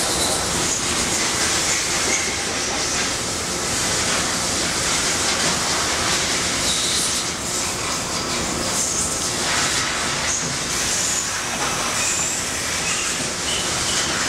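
Toyoda VH45 CNC vertical machining center running: a steady loud rush of machine noise with short high squeals that come and go.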